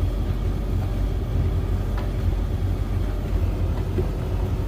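Beko WS832425s front-loading washing machine running the wash stage of a 30-degree cycle, drum turning the sudsy load with a steady low rumble and hum.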